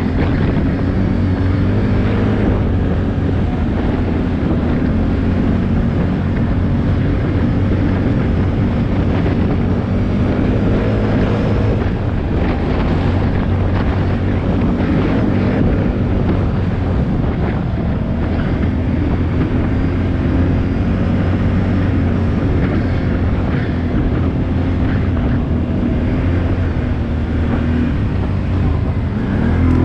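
ATV engine running steadily while riding off-road, with wind buffeting the microphone; the revs pick up slightly near the end.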